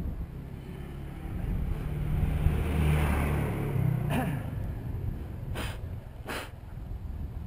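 A motor vehicle passing the bicycle: engine rumble and tyre hiss swell to a peak about three seconds in, then fade, over wind on the microphone. A few sharp clicks follow in the second half.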